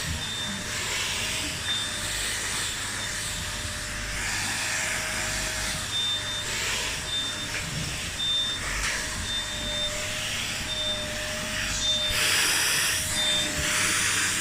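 Vacuum cleaner running steadily, a constant hiss of suction with a thin steady whine.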